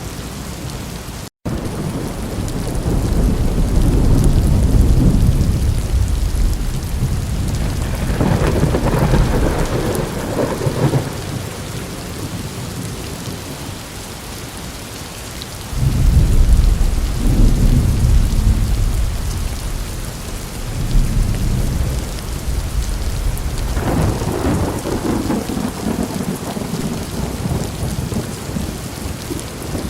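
Steady heavy rain with thunder rolling several times, one clap breaking in suddenly about halfway through. The sound cuts out to silence for an instant near the start.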